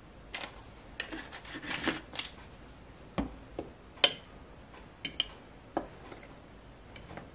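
Seasoning shaken from a shaker over a bowl of dry flour-and-cornmeal breading, then a metal spoon stirring it in a ceramic bowl: short rustles and a string of sharp clicks and knocks, the loudest about four seconds in.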